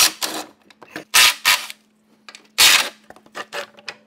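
Black plastic underbody splash shield of a 2006 Chevy Tahoe being pulled and wrestled off, scraping and rattling in three loud bursts, followed by a few short sharp clicks near the end.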